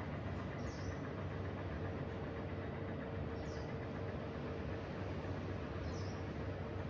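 Steady balcony ambience of low rumble and hiss, with a small bird giving a short high chirp three times, about every two and a half seconds. A faint steady hum comes in about two seconds in.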